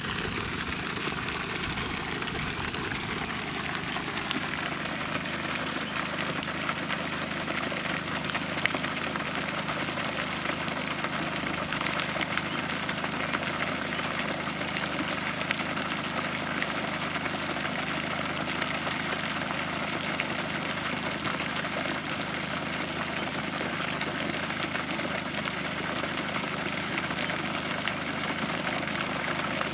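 Quarter-horsepower floating pond fountain running, its spray falling back onto the pond in a steady, unbroken rush.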